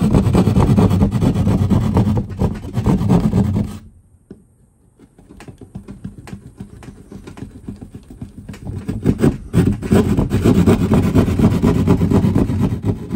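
Hand drywall jab saw cutting through drywall, a fast back-and-forth rasping of the blade. The sawing stops about four seconds in, restarts softly, and builds back to full strokes by the last few seconds.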